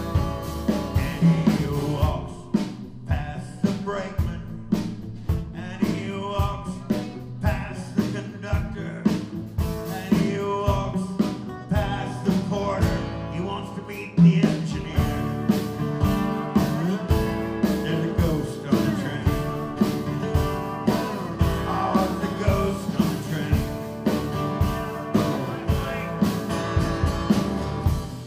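Live acoustic band playing an instrumental passage: two acoustic guitars strumming a steady beat under a lap steel guitar playing sliding lead lines.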